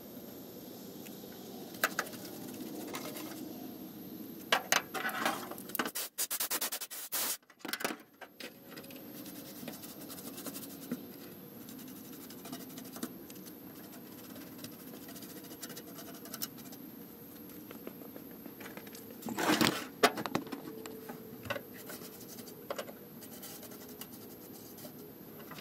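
Paintbrush scrubbing rust converter onto a rusty steel truck floor pan: a quiet, scratchy scraping with scattered taps and knocks, and a louder clatter about twenty seconds in.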